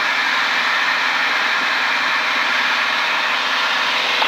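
Single-engine propeller airplane in cruise, heard from inside the cockpit: a steady drone of engine, propeller and airflow that holds even throughout.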